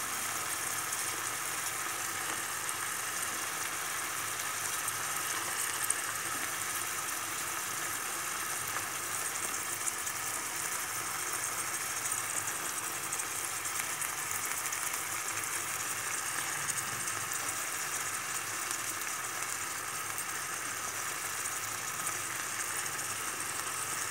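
Chopped green beans, freshly washed and still wet, frying in olive oil with onions and tomatoes: a steady sizzle with an occasional light click.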